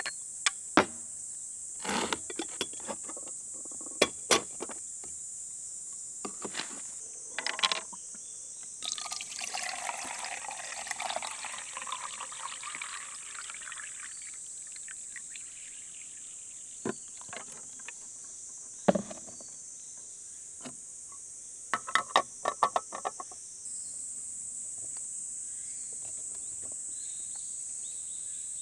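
Water poured from a plastic jug over ice into the glass top chamber of a cold-brew coffee dripper, a splashing pour of about five seconds starting about nine seconds in. Scattered sharp clinks and knocks of the glass dripper parts being handled come before and after it, over a steady high chirring of insects.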